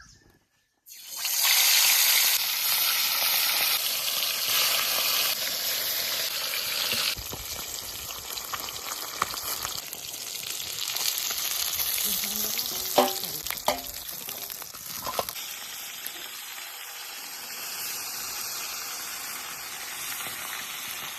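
Pork frying in hot oil in a pan: a loud sizzle that starts suddenly about a second in and eases after about six seconds into a steadier, quieter sizzle. A few sharp clicks of a utensil against the pan come a little past the middle.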